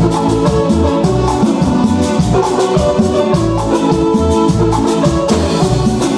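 Live Latin band music: a button accordion playing the melody over a steady drum beat, with no singing.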